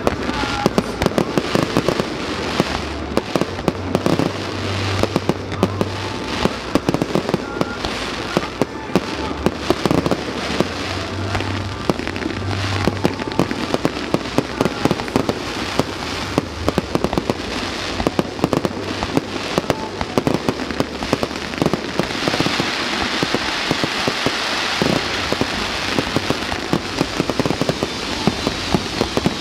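Fireworks display firing without a break: a rapid, unbroken run of bangs and crackles. In the last third it turns into a denser crackling hiss as ground fountains fire.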